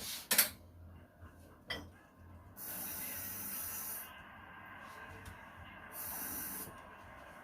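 A sharp click, then hissing in two strong spells, about a second and a half and then under a second, with a softer hiss between them.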